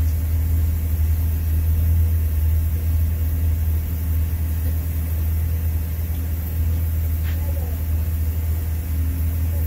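TIG welding on a stainless steel pipe joint, over a steady low engine drone as from an engine-driven welding machine running.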